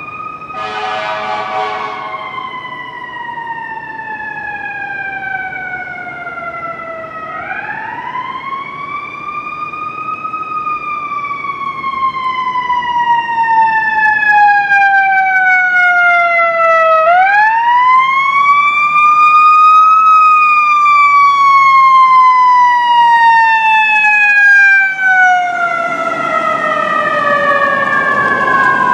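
Siren of a 2020 Seagrave fire engine wailing as the truck approaches, growing louder. Its pitch climbs quickly, then falls slowly, three times over. There is a short horn blast about a second in, and near the end the truck's engine and tyres pass close.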